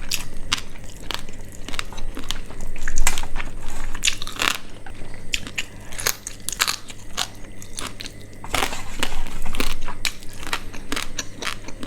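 Close-miked eating: a person biting, chewing and crunching a meal of spicy quail curry with rice and salad, in irregular wet clicks and crunches, with a few louder crunching stretches.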